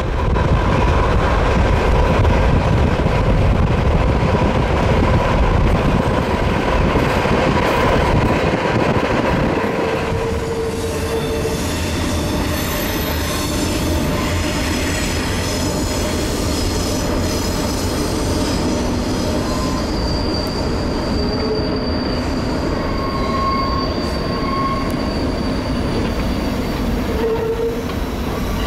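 Freight train rolling past with a steady rumble, its steel wheels squealing against the rails in thin high tones that come and go. The rumble eases a little about nine seconds in.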